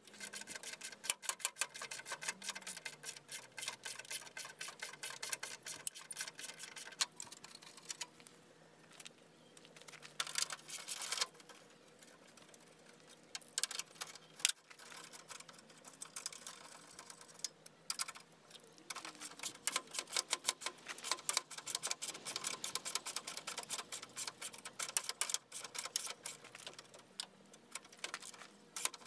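A dense run of rapid, irregular clicks and ticks from a ratchet and hand tools working the plastic grille's screws and clips, sped up in a time lapse.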